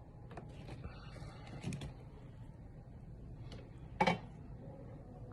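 Small clicks and scrapes of tools being handled on a workbench during an electronics repair, with one louder knock about four seconds in.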